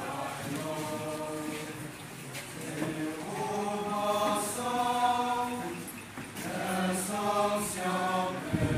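A group of voices singing together in unison, holding long notes in phrases with short breaks between them. A brief low thump near the end.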